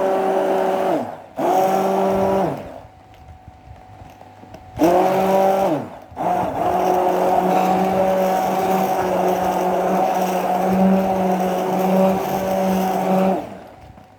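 A small electric mixer's motor running in three bursts as it blends citric acid into the cream conditioner. It runs for about two and a half seconds, stops for about two seconds, runs briefly, then runs steadily for about seven seconds. Its pitch winds down each time it is switched off.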